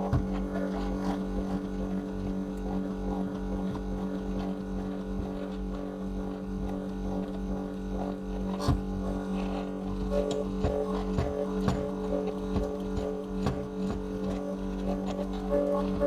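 Background music: a low, steady drone with a pulsing higher note in the second half, over a few faint clicks.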